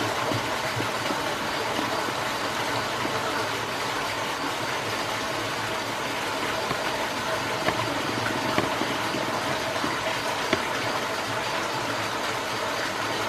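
Steady mechanical hum and hiss, with a few faint clicks.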